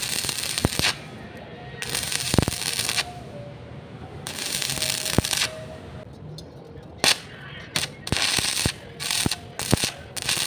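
Stick welding arc on thin-wall rectangular steel tube, crackling and hissing in repeated bursts as the arc is struck and broken to bridge a wide gap. The bursts are about a second long at first, then shorter and quicker from about halfway.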